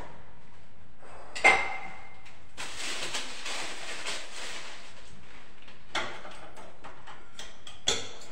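Kitchen utensil knocking against a bowl while icing is scooped into a piping bag: a sharp clink with a short ring about a second and a half in, a few seconds of scraping and rustling, then lighter knocks near the end.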